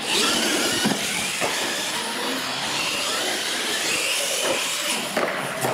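Radio-controlled monster trucks racing on a concrete floor: electric motors whining, rising and falling in pitch with the throttle, over a steady hiss from the tyres and drivetrains, with several sharp knocks along the way.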